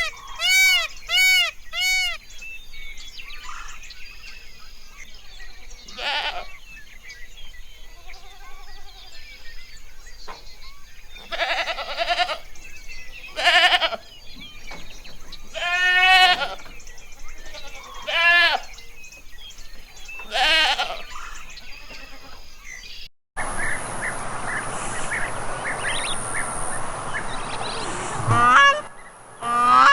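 Goats bleating: a string of separate calls a second or two long, some of them quavering, spaced a few seconds apart. About three-quarters of the way through, a steady rushing background noise sets in, and one more bleat comes near the end.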